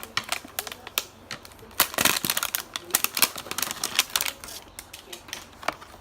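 Hands opening a hanger box of football trading cards: irregular crackling and clicking of the box's plastic and cardboard packaging, busiest about two seconds in.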